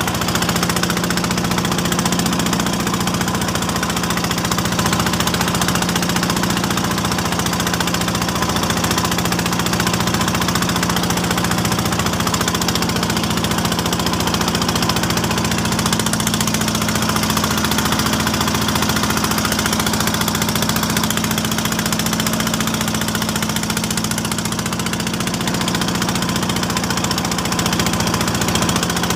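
Wooden outrigger fishing boat's engine running steadily at a constant speed, a continuous drone that does not change.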